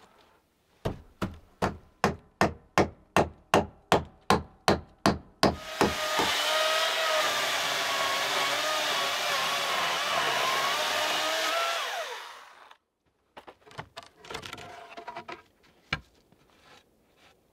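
A hammer strikes wood about fifteen times, roughly three blows a second, driving nails. Then a power tool's motor runs steadily for about six seconds with a whine that drops as it winds down, followed by a few scattered knocks on wood.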